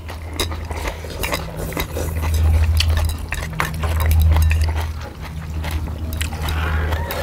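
Mukbang eating sounds: noodles being slurped, chewing, and sharp clinks of chopsticks and metal tongs against metal plates and the pan. A low hum swells and fades a few times underneath.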